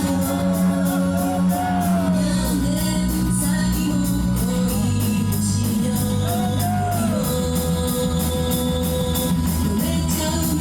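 Upbeat idol rock song performed live and played loud through a hall PA, with a female voice singing held, gliding notes over a steady drumbeat and heavy bass.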